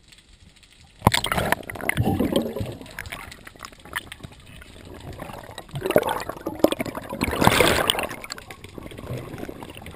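Air bubbles gurgling and rushing past a GoPro underwater, heard through its waterproof housing. The bubbling starts suddenly about a second in and comes in uneven surges, loudest between about six and eight seconds in.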